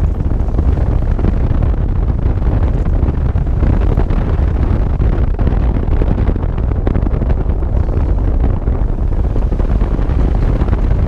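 Steady wind rush buffeting a microphone mounted on the outside of a moving 2001 Jeep Cherokee, over the deep rumble of the Jeep driving a sandy dirt trail.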